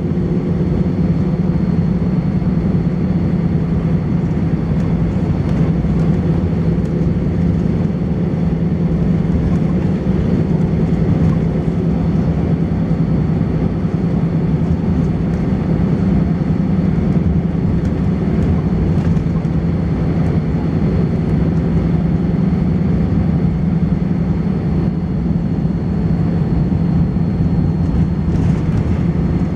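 Volvo B10BLE bus's diesel engine running steadily under way, a deep even drone with a faint, steady high-pitched whine held above it: the strange high-pitched noise this bus makes.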